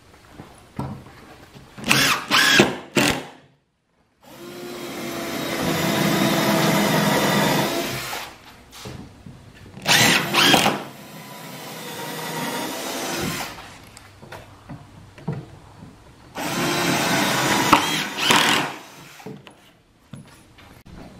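Cordless impact driver driving screws into the pine 1x6 boards of a workbench top, running in five bursts of one to four seconds each; the longest is near the start.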